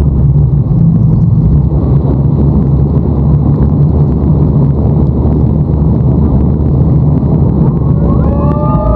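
Motorboat engine running steadily under way: a loud, even low drone.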